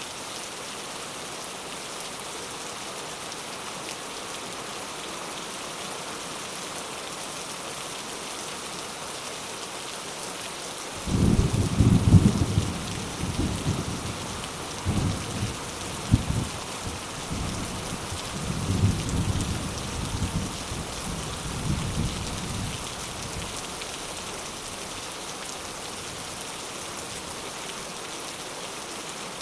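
Thunderstorm: steady rain hissing throughout, with a clap of thunder that breaks in suddenly about a third of the way in, loudest at its start, and rolls on in several swells for about twelve seconds before dying away under the rain.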